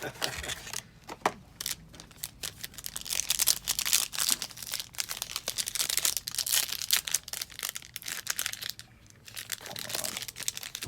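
Trading card pack wrapper crinkling and tearing as the pack is opened by hand, in irregular spurts of crackling.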